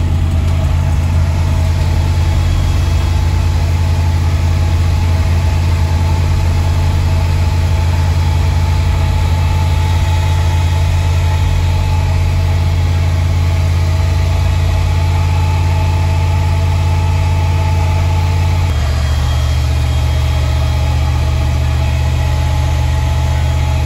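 Car audio subwoofers on a high-power amplifier system holding a loud, steady low bass tone, which steps down to a lower pitch about 19 seconds in.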